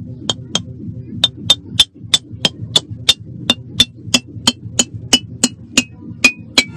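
Hammer striking a glazed ceramic piggy bank over and over, about three blows a second, each blow with a short high ring; the bank holds without breaking.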